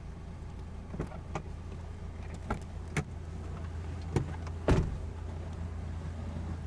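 Car running, heard from inside the cabin as a steady low hum, with a handful of short knocks and clicks, the loudest about three quarters of the way through.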